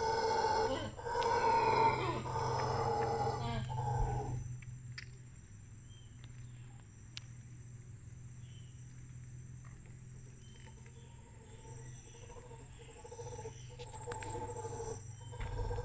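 Mantled howler monkeys howling, a chorus of deep roaring calls that drops away about four seconds in. Faint short chirps are heard in the quiet stretch, and the howling builds up again near the end.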